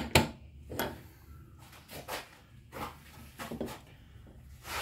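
A metal spanner clicking and knocking against the bonnet gas strut's nut and mounting: a handful of short, irregular clinks, the sharpest about a quarter-second in.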